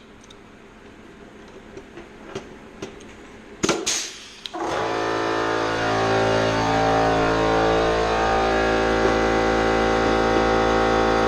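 Sharp pops of a pneumatic rivet puller setting rivets in aluminium skin, then a machine starts about four and a half seconds in and runs with a steady hum.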